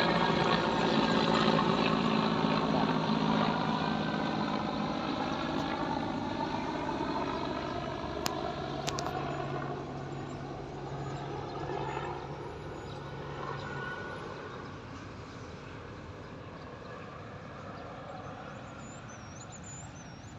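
A vehicle engine running, its sound fading steadily as it draws away.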